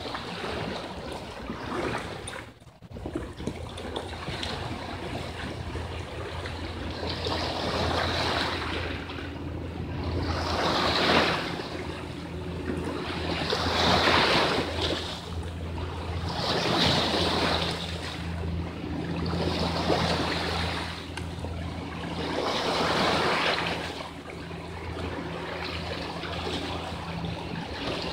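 Sea waves washing over shoreline rocks, swelling and falling back about every three seconds, with a steady low hum underneath.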